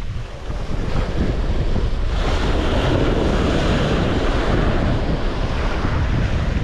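Wind buffeting the microphone over the wash of sea waves, with a surge of surf about two seconds in.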